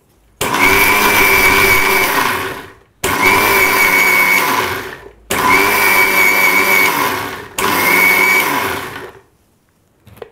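Electric mixer grinder (mixie) with a small steel jar run in four short pulses of about two seconds each on its whip setting, grinding fried brinjal, onion and chilli to a coarse chutney. The motor whines and each pulse tails off as it is switched off and the blades slow.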